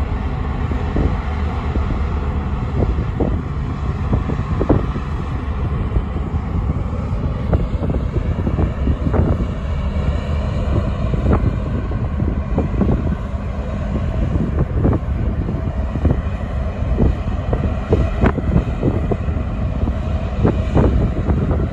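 Steady deep rumble of the large ferry Ulysses's engines as it pulls away from its berth, with scattered sharp clicks and knocks over it.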